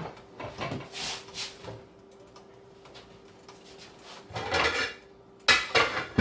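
Dishes and cutlery clattering as they are handled and moved about: a few knocks at first, a lull, then louder clattering near the end. A faint steady hum runs underneath.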